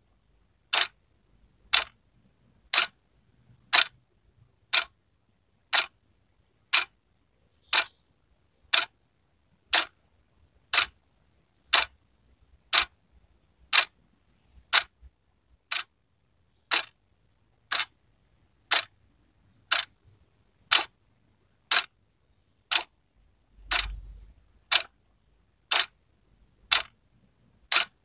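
Wall clock ticking steadily, one sharp tick each second.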